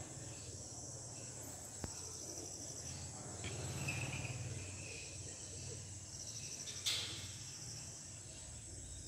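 Insects chirping outdoors in a steady, high trill, over a low steady hum. Two sharp clicks, a few seconds apart, break through; the second is louder.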